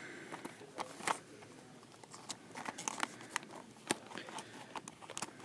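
Small cardboard window box holding a 1:64 diecast car, handled and worked open at its end flap by hand: scattered light clicks, taps and crinkles, a few sharper ones about a second in and toward the middle.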